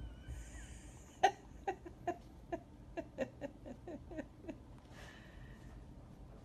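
A person laughing: a quick run of about a dozen short "ha"s, each dropping a little in pitch, the first the loudest.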